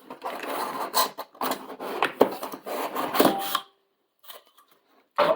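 Cardboard box and packaging being handled, rubbing and scraping with a few sharp knocks. It stops for about a second and a half near the end.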